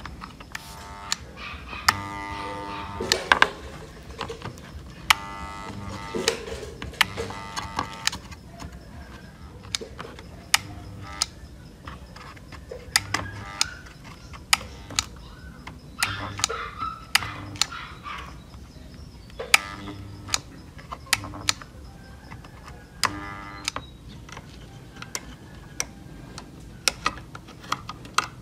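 Soft background music with a light, steady beat, over frequent sharp clicks and taps from hands and tools handling a circuit board.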